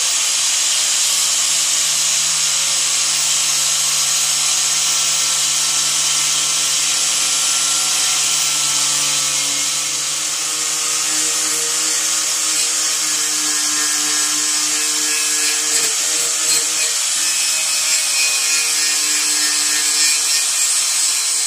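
Angle grinder with a wire wheel running steadily against the truck's sheet-metal cab-corner seam, stripping seam sealer and paint: a steady motor whine under a harsh scratching hiss. Its pitch sags slightly about halfway through as the wheel is pressed into the metal.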